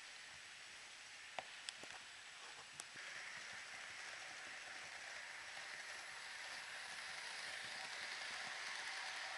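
Model train running on the layout's track: a faint, steady rushing hiss of wheels and motor that steps up about three seconds in and keeps growing louder as the train comes closer. A few sharp clicks come just before the rise.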